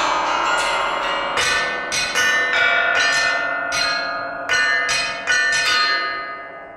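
Metal percussion struck with mallets in a contemporary chamber piece: an irregular run of about a dozen bell-like strokes, each ringing on and overlapping the next, fading toward the end.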